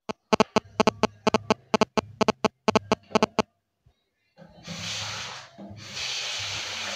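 A rapid run of about twenty sharp clicks, roughly six a second, stops after about three and a half seconds; after a short silence, water from a bathroom sink tap runs steadily onto a bundle of hair in the basin.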